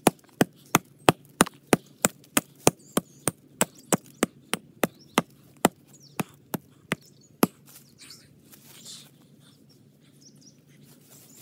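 A hatchet chopping into a standing tree trunk: quick, sharp wooden strikes about three a second, stopping about seven and a half seconds in.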